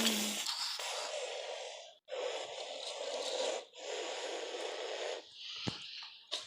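A person's breathy, hissing exhalations, three long ones in a row of about a second and a half each, then a shorter, softer one near the end.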